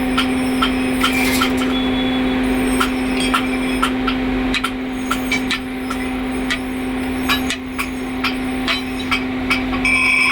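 Metal being struck with a hammer in a forging shop, about two blows a second with a ringing clang, over a steady machine hum.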